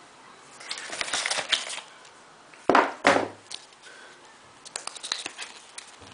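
Packaging being handled as box contents are taken out: a rustling stretch about a second in, two loud crinkles near the middle, then scattered light clicks and taps.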